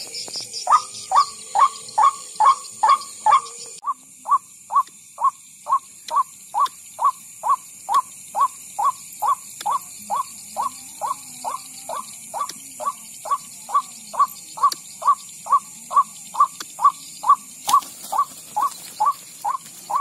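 Electronic bird caller's loudspeaker playing a recording of white-breasted waterhen (ruak-ruak) calls, used as a lure: one short note repeated very evenly, about two and a half times a second.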